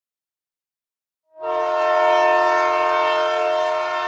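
Total silence, then just over a second in a train horn sounds suddenly and holds a long, steady, loud chord of several tones.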